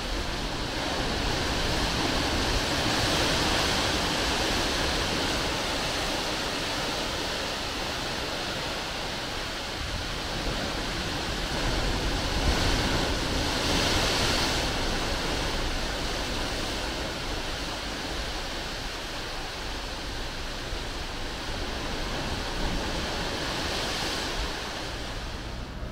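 Sea waves surging and breaking against rocky sea cliffs, a steady wash that swells louder three times.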